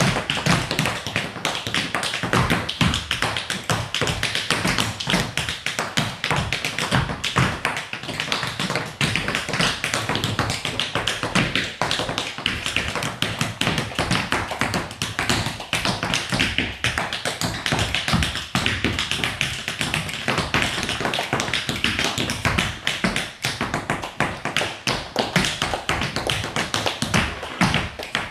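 Tap dancing: metal taps on shoes striking a wooden floor in fast, dense, unbroken rhythms.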